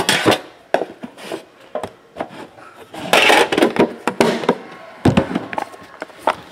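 A metal Immaculate Baseball card box being opened by hand: sharp clacks as the lid is lifted off, then a stretch of rubbing and scraping as the lid and contents are handled, and a dull thump about five seconds in.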